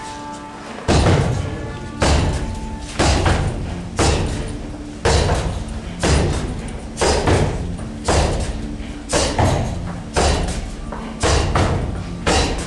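Repeated heavy thuds, about one a second, each with a short ringing fade.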